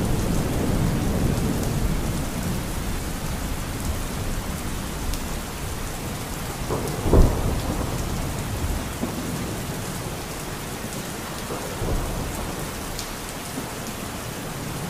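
Steady rain with rolls of thunder, the loudest crack about seven seconds in and a smaller rumble near twelve seconds; the whole sound slowly fades.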